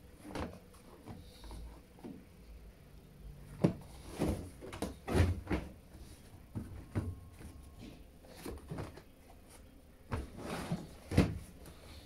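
Wet jeans being handled and pulled out of a top-loading washing machine drum: irregular rustling of heavy fabric with several dull knocks against the machine.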